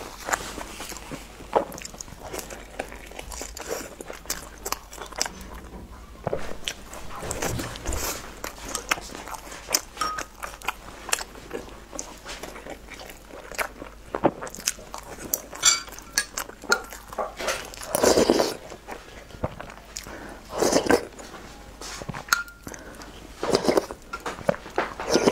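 Close-miked mouth sounds of a person biting and chewing soft dumplings: many short wet clicks and smacks, with a few louder bursts of eating noise in the second half.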